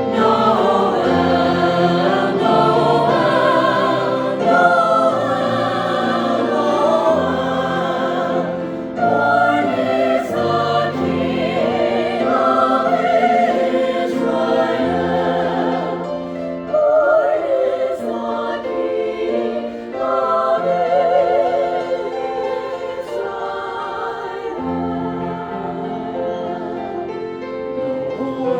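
Choir singing, the voices wavering with vibrato over sustained low accompanying notes.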